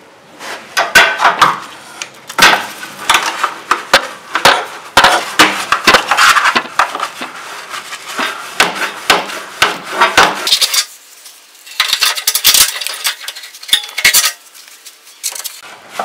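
A brush scrubbing dust off a GE side-by-side refrigerator's wire-and-tube condenser coil: quick scratchy strokes with metallic clicks and rattles from the wire grid. The strokes run for about ten seconds, stop briefly, then come again in a shorter run.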